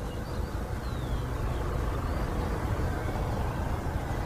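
Low, steady rumble of an F/A-18 Hornet's twin jet engines as the fighter comes in to land, growing slightly louder as it nears touchdown.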